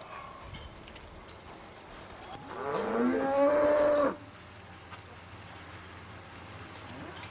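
A cow mooing once: one long call of about a second and a half that rises at the start, holds, then cuts off sharply.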